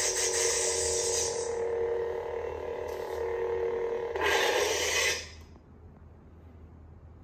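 Neopixel lightsaber's sound board humming steadily, with a hiss over the hum for the first second and a half. About four seconds in, a short loud retraction sound plays and the hum cuts off as the blade switches off.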